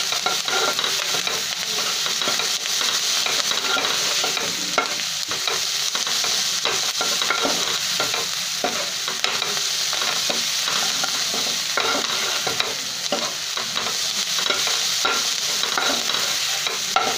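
Chopped onions and spice masala sautéing in a non-stick kadhai, sizzling steadily, while a steel spoon stirs them with frequent scrapes and taps against the pan.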